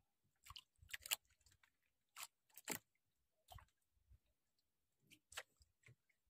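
Near silence, with a few faint, scattered clicks and taps.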